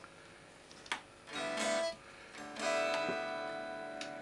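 Electric guitar strummed twice, heard only as the thin unamplified sound of its strings, the second chord left ringing and slowly fading. The Marshall Valvestate 40V amp it is plugged into passes nothing on its normal channel: the amp is dead there, blamed on corroded contacts in the preamp-out/power-amp-in jack sockets.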